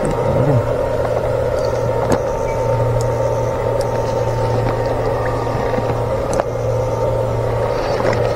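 Steady electric hum of an electrofishing shocker running while its pole is swept through the water, with a few sharp clicks.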